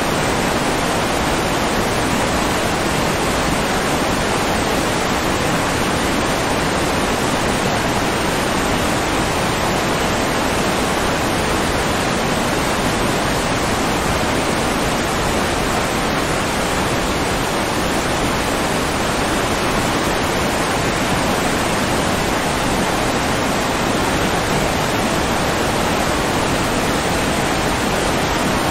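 Steady rushing water, an even unbroken hiss and roar with no changes.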